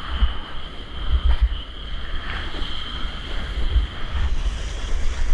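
Wind buffeting the camera microphone in heavy, gusty rumbles while a surfboard rides a small wave, with whitewater rushing and spraying beside the board. A thin steady high tone runs underneath.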